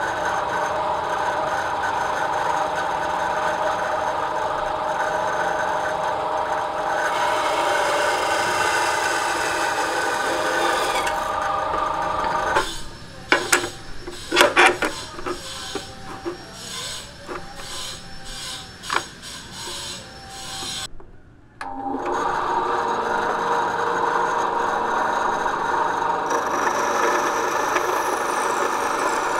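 Small benchtop band saw running with a steady whine and cutting a short round length of branch wood. Through the middle the sound turns rough and uneven, with irregular sharp knocks and scrapes, and it cuts out briefly about 21 seconds in before the steady running returns.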